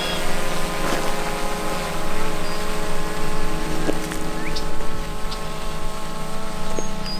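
DJI Mavic 2 Zoom quadcopter drone in flight, its propellers giving a steady buzzing hum made of many tones at once.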